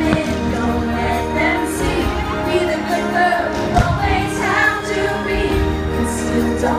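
Fireworks-show soundtrack: music with singing and choir. A single sharp bang cuts through about four seconds in.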